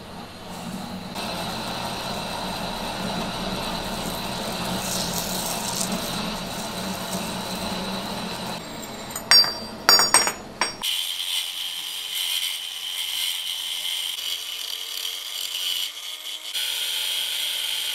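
Metal lathe boring out a tough steel bar, running steadily with cutting noise, with two sharp knocks about nine and ten seconds in. After about eleven seconds the sound changes abruptly to an angle grinder with a thin cutting disc, running with a steady whine as it cuts into the rim of the steel tube.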